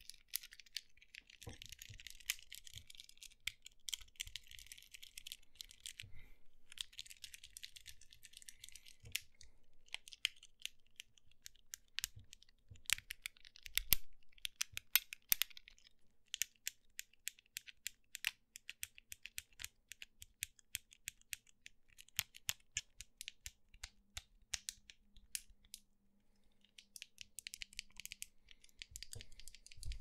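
Fidget cube worked by hand close to a microphone: runs of quick, sharp clicks from its buttons and switches, denser in the middle, with stretches of high hissy rubbing at the start, around a third of the way in and near the end.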